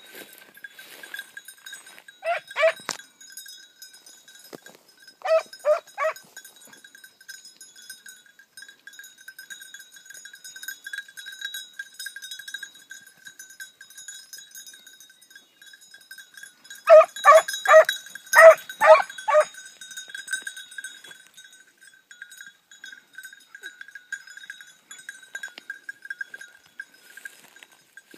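Italian scent hounds baying as they work a scent: two short bays, then three, then a run of about seven well past the middle. Throughout, a steady ringing comes from a hunting bell on a dog.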